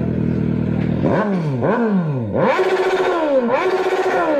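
Motorcycle engine idling, then revved: two quick throttle blips, each rising and falling in pitch, followed by two longer revs held high before dropping back.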